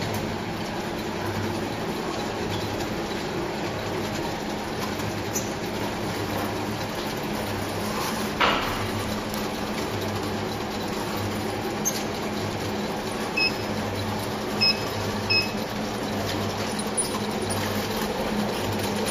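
Wave soldering machine running with a circuit board on its finger-chain conveyor: a steady mechanical hum with a low drone that pulses slowly. A brief rattle comes about eight seconds in, and three short high beeps sound a little past halfway.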